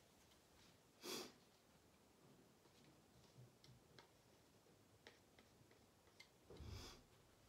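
Near silence, with faint small clicks of a palette knife against a small plastic cup as a little paint solution is scooped, and two short soft rushes of noise, one about a second in and a longer one near the end.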